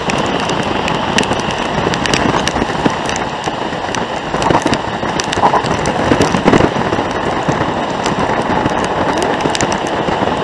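Rain striking a moving car's windows and roof, heard from inside the cabin: many sharp drop hits over steady road and tyre noise.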